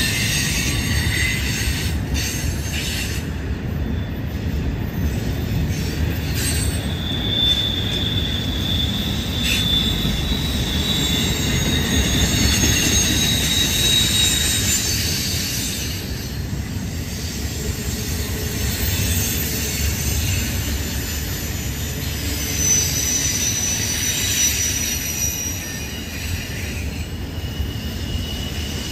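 Double-stack intermodal freight cars rolling past: a steady rumble of steel wheels on rail, with high thin wheel squeals that come and go several times as the cars take the curve.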